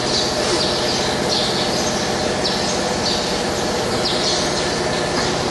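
Steady machine-shop background noise with a low hum, and short high-pitched chirps recurring at uneven spacing about every second.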